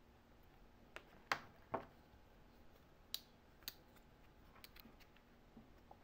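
Faint handling noise from a nylon multi-tool sheath with a hook-and-loop flap: a few scattered clicks and two short rasps about a second and a half in.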